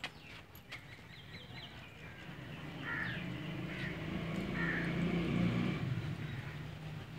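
An engine running, its hum growing louder from about three seconds in, with birds chirping and a few sharp clicks near the start.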